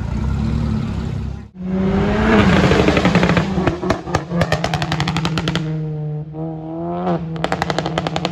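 Volkswagen Golf hatchback accelerating hard, its exhaust firing rapid strings of pops and crackles: a run of about two seconds starting a few seconds in and a shorter one near the end, with the engine note rising between them. Before that, for the first second and a half, another car engine runs low.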